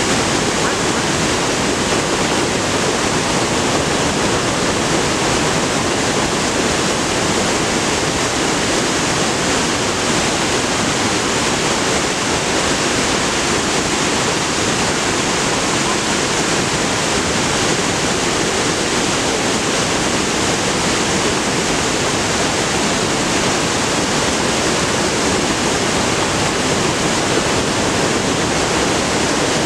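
Steady, loud rush of the Rhine Falls, a broad river waterfall, its white water pouring over rocks without a break.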